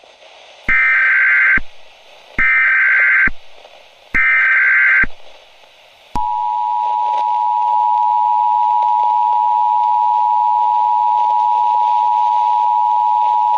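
Emergency Alert System tones: three short buzzy bursts of SAME header data, each just under a second long, then the steady two-tone EAS attention signal starting about six seconds in. The data bursts encode the alert's header, and the attention tone comes before the spoken warning.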